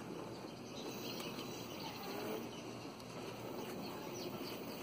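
Hoverboard brushless hub-motor wheels of a small electric go-kart rolling slowly over concrete: a steady rolling noise, with a few faint high chirps over it.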